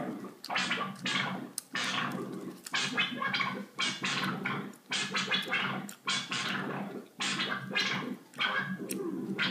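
Analog synthesizer (the Mogol) played by a jerkoff chaos circuit: an uneven, never-repeating series of filter sweeps, each a bright burst that falls away, about one or two a second, over a low drone. The chaotic voltages drive the filter cutoff and the pitch.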